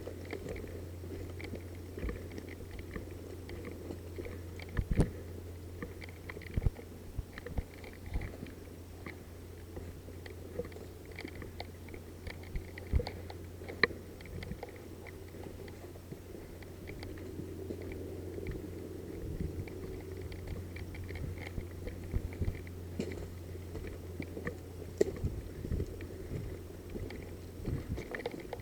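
Irregular crunches, snaps and rustles of footsteps and gear moving slowly through dry brush and twigs, over a steady low hum.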